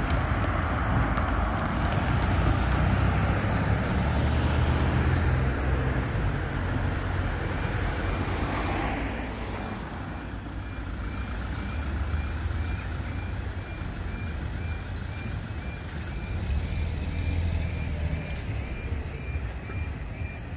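Cars passing over a level crossing with a steady low rumble of road traffic. About a third of the way in the crossing's quiet alarm starts: a faint high beep repeating about twice a second, warning that the barriers are about to lower for a train.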